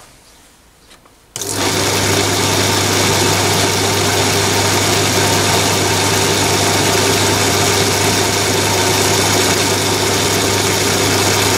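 Chinese mini lathe, converted to belt drive with an external motor and pulley belt, switching on about a second and a half in and running steadily with the spindle at about 560 rpm: a steady low motor hum under a dense whirr of belt and pulleys.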